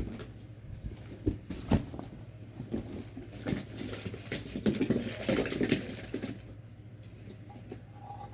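Fidget toys being handled: a couple of sharp clicks early, then a dense stretch of crackling and rustling clicks that dies down about six seconds in.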